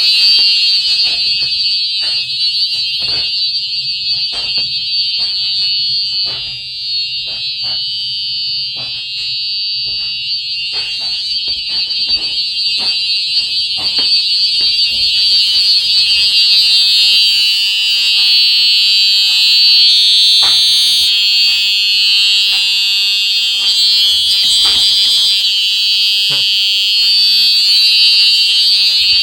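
Revere R100PD2 mini horn sounding a loud, steady, high-pitched continuous alarm tone, with faint irregular clicks underneath.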